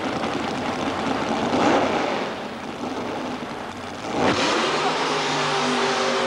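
Nitrous-injected 454 cubic inch Chevy V8 of a mud-bogging Jeep CJ5 running hard through the mud pit, with a sudden loud bang about four seconds in, after which the engine runs on at a steady pitch.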